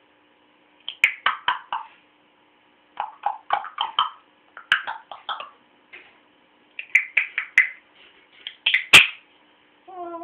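A cat chattering and chirping in quick bursts of short clicky calls, with a sharp click about nine seconds in.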